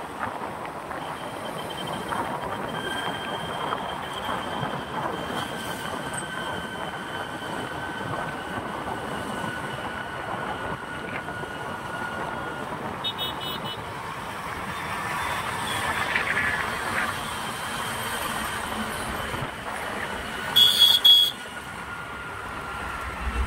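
Steady road traffic noise with a long high whine running through it, and a vehicle horn sounding briefly and loudly about two seconds before the end.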